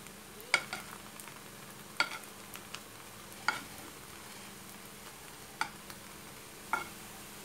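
Bread slices frying in shallow oil with a faint steady sizzle, while a steel spoon turning them clinks sharply against the non-stick pan five times.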